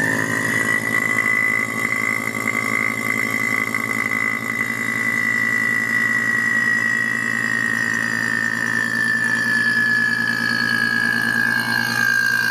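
AC vacuum pump running steadily while evacuating a car's air-conditioning system: an even motor hum with a high whine on top that sinks slightly in pitch over the last few seconds.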